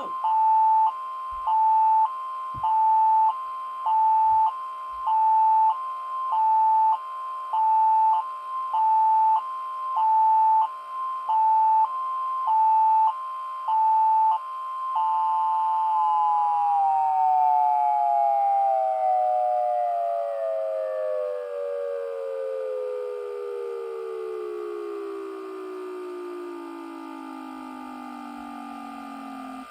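Siren test: a hi-lo tone stepping between two pitches, each held a little over half a second, repeating about a dozen times. About fifteen seconds in it switches to one steady tone that slowly falls in pitch as the siren winds down.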